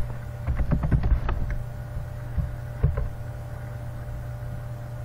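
Clicks from a computer mouse and keyboard: a quick run of clicks in the first second and a half, then two more about two and a half and three seconds in, over a steady low electrical hum.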